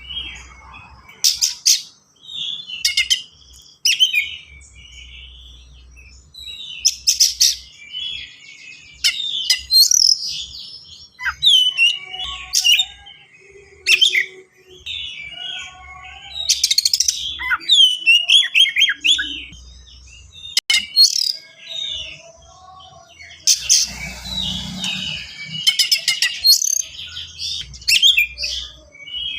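Oriental magpie-robin (kacer) singing a fast, dense song packed with mimicked phrases: quick chirps, whistles and sliding notes broken by loud, harsh, sharp bursts.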